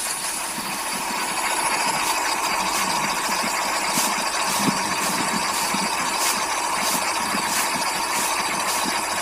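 Small DC motor whirring steadily as it drives a homemade miniature chaff cutter through a rubber-band belt, spinning its cardboard flywheel while the cutter chops green grass. From about two seconds in, sharp ticks repeat a little under twice a second.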